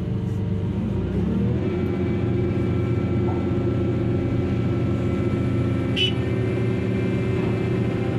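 Heavy diesel-hydraulic machinery of a ship's deck excavator running steadily under load as it swings a full bucket of limestone; the engine picks up speed about a second and a half in, and there is one short sharp click about six seconds in.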